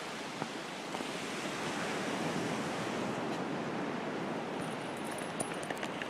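Steady rushing wash of ocean surf on the beach, with a few faint ticks near the end.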